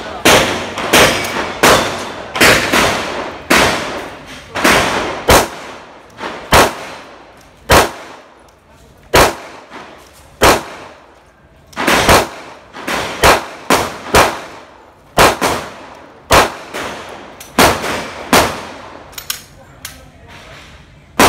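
Gunshots at a shooting range: sharp cracks of varying loudness, each with a short echoing tail, fired irregularly at about one or two a second, sometimes two in quick succession.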